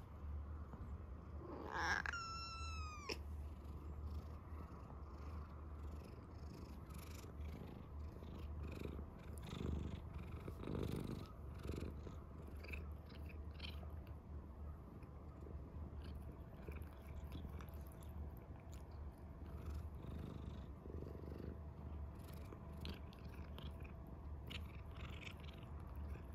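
Calico cat purring steadily while being stroked under the chin, with one short meow about two seconds in. Small wet clicks from the cat licking and nibbling a finger come through later.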